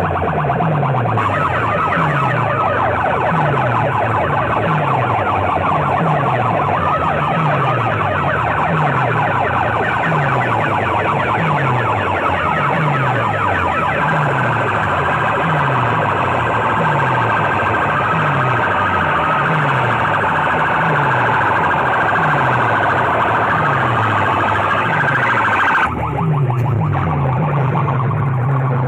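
Several banks of horn loudspeakers blasting at full volume together, harsh and distorted. A low falling whoop repeats about once a second under a wavering high wail. Near the end the whoops give way to a steady low drone.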